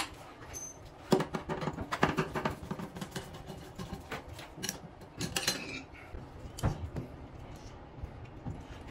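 Light, irregular metallic clicks and clinks of a gloved hand working at a bathtub's metal drain. They come thickest a second or so in and thin out toward the end.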